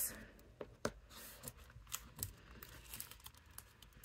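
Faint, scattered crinkling of the plastic film wrapped around a craft sheet as hands smooth and press it, with a few light taps.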